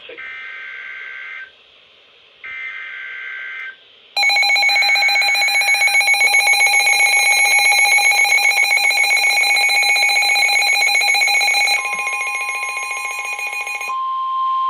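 Emergency Alert System alert tones. Two short buzzy bursts of digital header data come first. About four seconds in, the loud, harsh, pulsing EAS attention tone starts. Near the end it gives way to a single steady tone.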